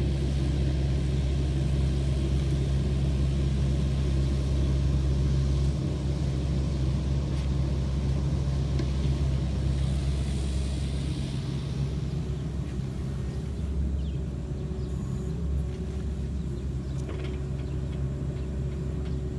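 Hitachi ZX65USB mini excavator's diesel engine running steadily under work, a low drone whose note shifts slightly a couple of times.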